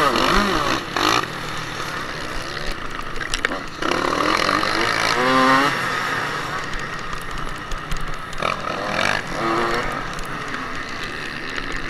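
Motocross bike engine, heard from on board, revving hard with several rising sweeps in pitch as the rider accelerates and shifts. A constant rush of wind noise runs under it.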